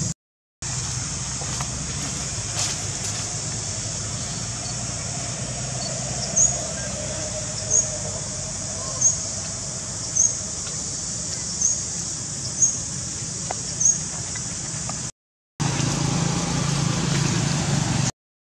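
Outdoor ambience: a steady low hum under a steady high drone. From about six seconds in, a short high chirp repeats seven times, about every second and a quarter.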